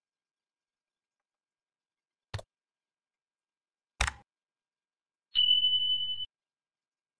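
Sound effects of an animated subscribe-button overlay: two sharp mouse clicks about a second and a half apart, then a small notification bell ringing on one high tone for about a second.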